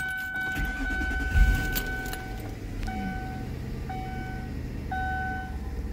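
2002 Ford Thunderbird's 3.9-litre V8 cranked and catching about a second and a half in, then idling steadily. Over it the car's warning chime sounds, first one long steady tone and then short beeps about once a second, the chime for the open driver's door.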